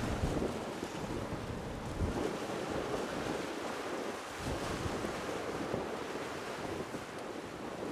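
Wind gusting on the microphone over a steady rush of sea noise: an uneven, rumbling wash with no engine tone heard.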